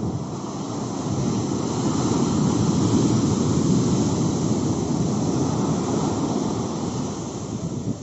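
Sea surf: waves breaking on a beach, a rushing noise that builds about a second in, peaks midway, and eases off as the foam washes up the sand.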